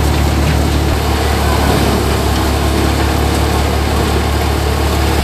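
Dashmesh paddy thresher running under load off a Massey Ferguson 5245 tractor while paddy bundles are fed in. The tractor engine and the threshing drum make a loud, steady, unbroken drone.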